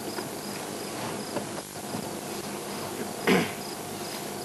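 Insect chirping steadily, a short high chirp repeated about three times a second, over a faint outdoor background. One brief louder sound cuts in about three seconds in.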